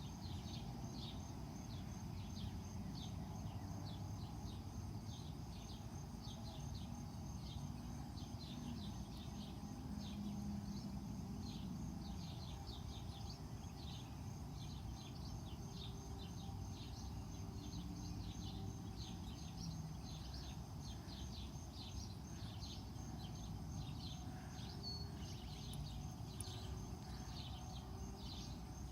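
Many small bird chirps over a steady low background rumble, with a faint continuous high whine.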